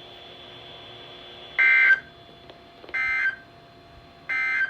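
Emergency Alert System end-of-message signal: three short bursts of digital data tones, each about a third of a second long and about 1.3 s apart, marking the end of the alert.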